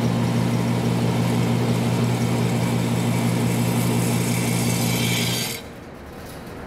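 Electric motor of a range target carrier reeling a paper target in along its overhead track: a steady hum that stops abruptly about five and a half seconds in as the target arrives.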